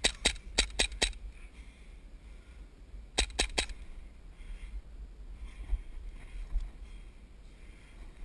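Airsoft pistol firing: a rapid string of five sharp cracks in the first second, then a quicker burst of three about three seconds in.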